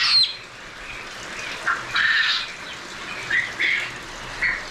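Penned poultry calling: short, high calls repeated about once a second, the first sweeping sharply downward, over a steady background hiss.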